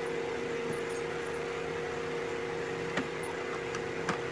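Steady hum from a running fan or motor, with two light clicks about three and four seconds in as a wire is fastened to a switch's screw terminal.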